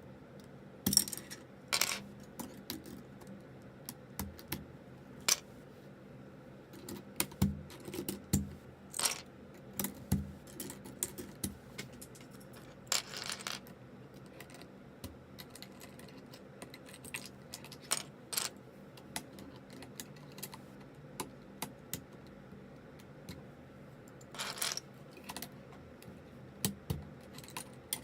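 Plastic keycaps on a mechanical keyboard being pulled off and pressed back onto the switches, with irregular sharp clicks and the clatter of loose caps.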